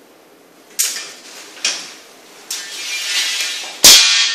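An aluminum track bar being worked free of a metal wall-plate bracket. Three sharp metal clicks are followed by a rising scrape as the bar slides, ending in one loud clank just before the end.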